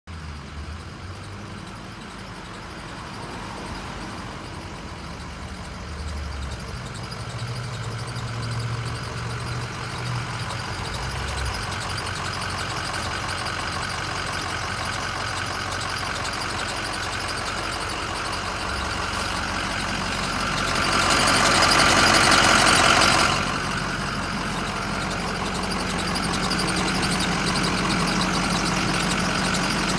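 An engine running steadily with a squeaky noise. The higher-pitched part swells louder for about three seconds around two-thirds of the way through.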